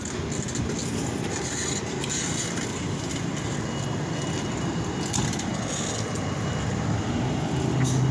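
Steady rumble and crunching noise of a bicycle rolling over a rough concrete street, with wind on the microphone, and a fire engine running just ahead.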